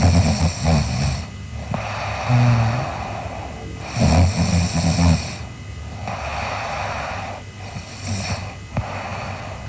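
A girl snoring in her sleep: three snores on the in-breath, about four seconds apart, each followed by a breathy out-breath. The third snore, near the end, is weaker.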